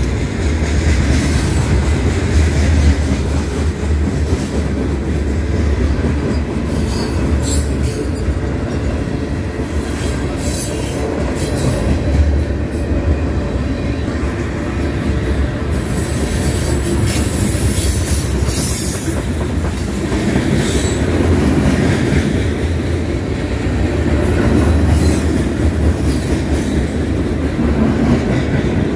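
Freight cars of a long mixed freight train rolling past close by: a steady, loud rumble of steel wheels on rail, with clatter over the rail joints and brief high-pitched wheel squeals now and then.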